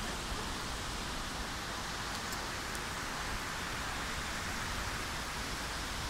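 Steady rushing of the Gegsky waterfall: a dense, even hiss of falling water with no breaks.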